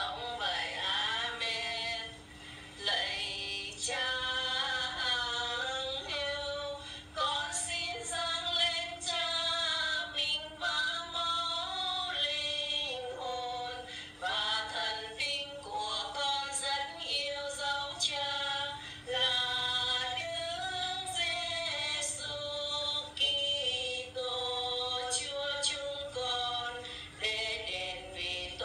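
A woman's voice singing a slow devotional hymn in long held notes, with a steady faint hum underneath.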